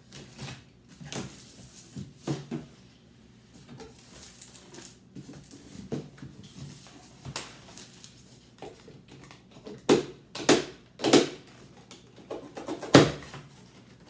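A large cardboard box being unpacked: a box cutter scraping along the packing tape, then the cardboard flaps pulled open and the plastic wrapping inside handled, giving a run of scrapes, tearing and rustling. The loudest sounds are several sharp cardboard knocks and rustles in the second half.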